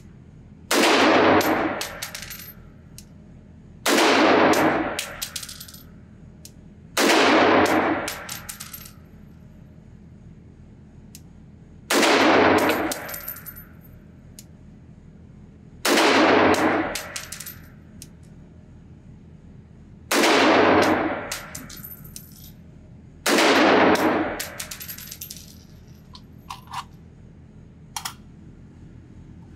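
Seven single rifle shots from a Nemo Arms Battle Light Rifle, an AR-15-style rifle in 6mm ARC, fired slowly three to five seconds apart. Each shot echoes briefly off the concrete range and is followed by faint metallic clinks of ejected brass.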